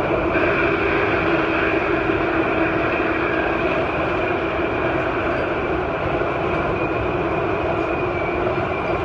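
Train's passenger cars rolling past on the rails, a steady rumble with a steady whine riding over it.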